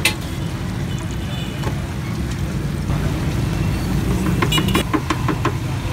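Steady low rumble of street traffic over hot oil bubbling in a deep fryer, with a quick run of sharp metal clinks from tongs and a wire fry basket about a second before the end.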